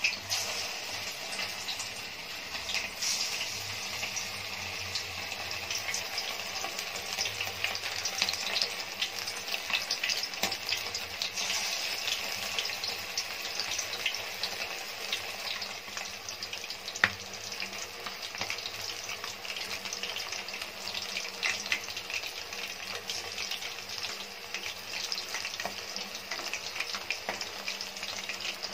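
Marinated chicken pieces deep-frying in hot oil in a steel kadai: a steady bubbling sizzle full of fine crackling pops, with one sharp click partway through.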